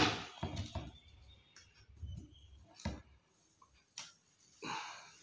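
Clicks and taps of a broken badminton racket frame being handled as its glued pieces are fitted back together: a sharp click at the start, scattered faint ticks, and a firmer knock about three seconds in.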